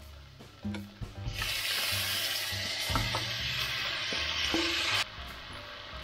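Chicken pieces tipped from a metal bowl into a hot stainless steel frying pan, setting off a loud sizzle about a second in that cuts off sharply near the end. A few light clinks of metal come before it.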